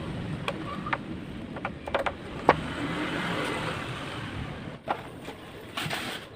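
Several short, sharp clicks and knocks, the loudest about two and a half seconds in, over a steady background noise.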